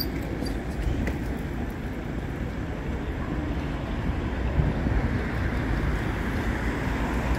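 Steady city street background: low traffic rumble mixed with wind buffeting the microphone.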